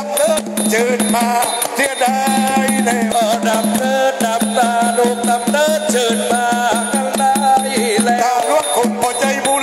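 Southern Thai nora ensemble music: a wavering melody line over a steady low tone and a brisk running rhythm of drums, small cymbals and clappers.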